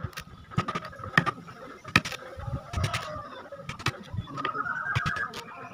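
Hammer tapping on a wooden sofa frame and on pincers while old nails and tacks are knocked and pulled out: irregular sharp knocks, some in quick pairs.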